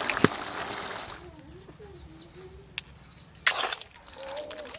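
Pot of curry boiling hard over a wood fire, a dense bubbling hiss, with a sharp metal clank as the pan is lifted; the boiling stops about a second in. After that come a few clinks of a steel ladle against a steel serving dish, the loudest about three and a half seconds in, and faint wavering calls in the background.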